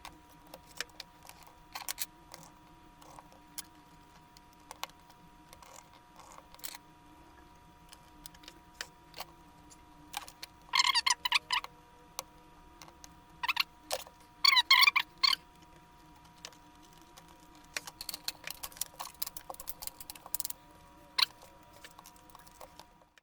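Small plastic clicks and taps from handling and reassembling laptop parts, with two louder bursts of rapid clicking rattle, one about 11 seconds in and another around 14 to 15 seconds in.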